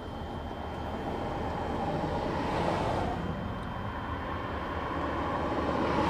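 Vehicles passing by. The noise swells and fades about two and a half seconds in, and swells again near the end.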